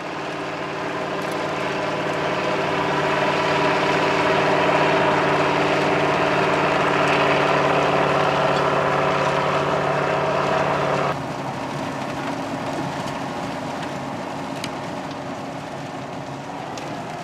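Riecam RBM 300 sugar beet harvester at work, its air-cooled Deutz V8 engine running steadily together with the machine's mechanical noise. It grows louder over the first few seconds, then drops suddenly to a quieter level about eleven seconds in.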